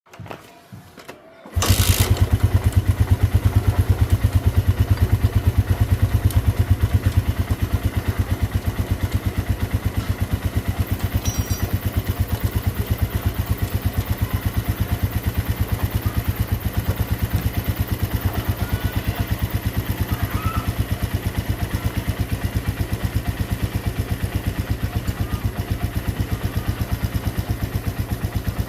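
Suzuki Satria FU 150 single-cylinder four-stroke engine starts about a second and a half in, then idles steadily with a rapid, even pulse. The engine has just been reassembled and is being run for an oil check.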